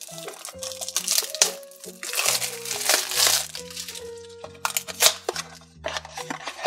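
Light background music with a steady melody, over bursts of crinkling and scraping as a small cardboard blind box is handled, picked at and its top flap pulled open.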